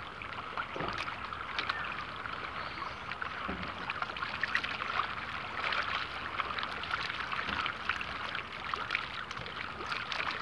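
Small waves lapping and splashing at the water's edge close to the microphone: a steady trickling with many quick little splashes.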